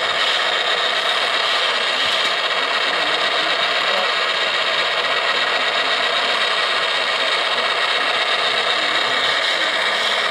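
Steady whirring of radio-controlled scale model machines, small electric motors and gearboxes running at an even level.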